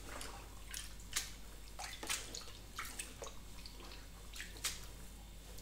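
Soapy water splashing and dripping in a plastic washing-up bowl as hands press a knitted wool jumper down to soak it: quiet, irregular small splashes and drips.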